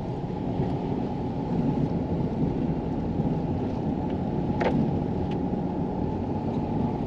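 Steady road and engine rumble heard from inside a moving vehicle's cabin, with one faint click a little past the middle.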